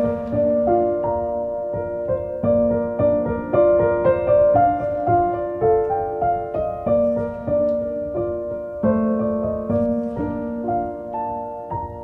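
Background piano music, a melody of separate sustained notes, fading out near the end.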